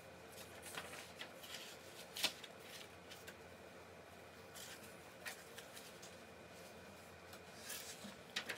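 Faint rustling with scattered light clicks, the sharpest about two seconds in.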